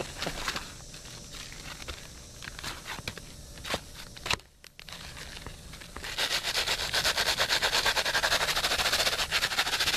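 Asphalt shingle being scraped, its granules grating off: scattered scrapes of handling the shingle, then from about six seconds in a loud run of rapid, even scraping strokes.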